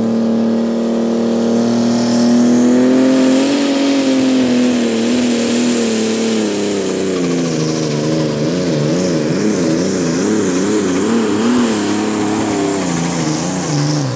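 Deutz-Fahr 'Warrior' Limited Superstock pulling tractor's engine at full power, dragging the weight sled, with a faint high whine above it. From about seven seconds in its note wavers rapidly up and down, and near the end it falls away as the run finishes.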